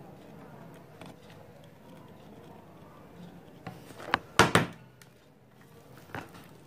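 A few sharp knocks clustered about four seconds in, the loudest a double knock, and one lighter knock near the end, over faint room noise.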